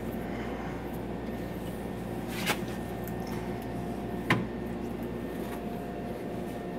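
Manual tire changer's bead breaker being levered against an ATV tire's sidewall to break the bead: two short knocks about two seconds apart, over a steady low hum.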